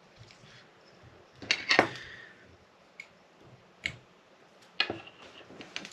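Tools and materials being handled on a jig-tying desk: a short clatter about a second and a half in, then single sharp clicks and taps every second or so.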